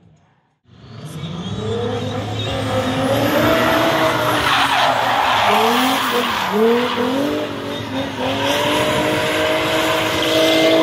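Drift car's engine revving up and down through a slide, with tyres skidding and squealing. It fades in from silence in the first second, and the engine holds steady at high revs near the end.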